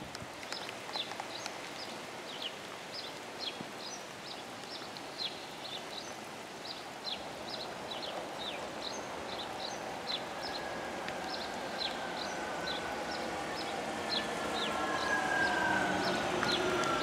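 Small birds chirping rapidly and repeatedly. From about ten seconds in, the whine of an approaching Class 323 electric multiple unit grows louder, its pitch slowly falling as the train slows into the station.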